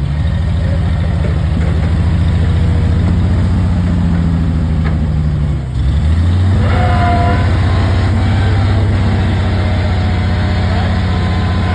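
An engine on a piece of heavy equipment running steadily. It dips briefly about six seconds in, then picks back up.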